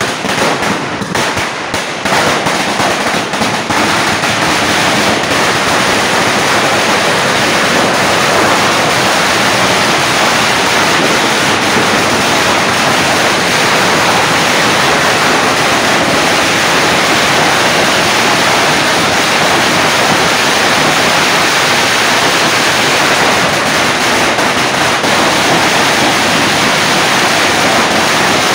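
Indigo 10000 wala firecracker garland bursting: thousands of small crackers going off so fast that the bangs merge into one loud, dense, continuous crackle. The bangs are more separate for the first couple of seconds, then it holds steady.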